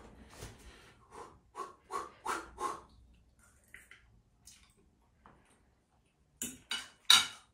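A man makes short breathy vocal noises while tasting a gelatinous boiled egg dish: a run of about five, evenly spaced, then three louder sharp bursts near the end.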